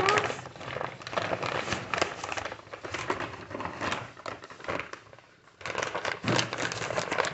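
A brown paper bag crinkling and rustling as it is handled, in a string of crackly rustles with a short lull about five seconds in.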